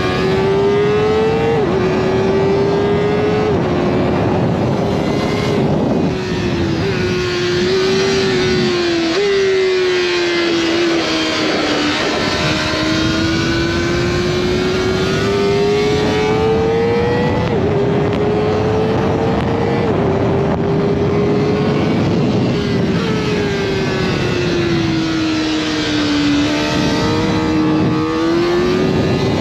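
Kawasaki Ninja ZX-4RR's 399 cc inline-four at speed on track: the engine note climbs through the gears with a sudden drop at each upshift, and falls away in longer slides as it slows and shifts down. A steady rush of wind noise lies over it.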